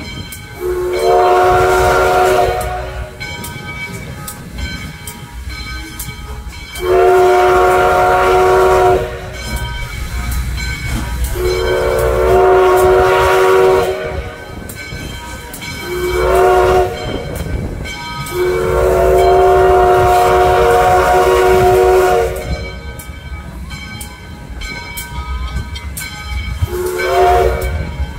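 Steam locomotive chime whistle blown for a road grade crossing: four long blasts and two short ones, each a steady multi-toned chord, over the train's low running rumble.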